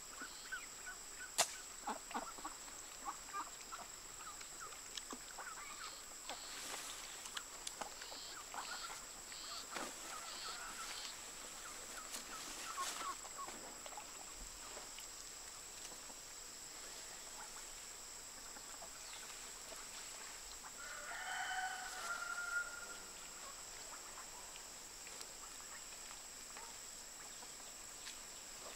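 Chickens clucking in short repeated calls through the first half, and a rooster crowing once about twenty-one seconds in, over a steady high-pitched hum. A single sharp click comes about a second and a half in.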